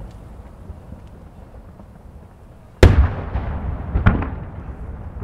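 Aerial firework shells (No. 7, about 21 cm) bursting overhead: a loud boom about three seconds in, followed by a rumbling echo, then a second sharp report a little over a second later, over a low rumble.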